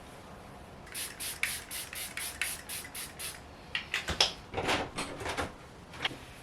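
A quick run of about ten short hissing bursts, roughly four a second, then a cluster of irregular clicks and knocks.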